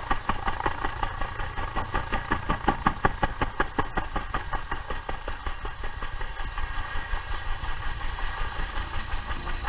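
Helicopter lifting off: a fast, even rotor beat of about five or six pulses a second over a steady high turbine whine, which sinks slightly in pitch near the end.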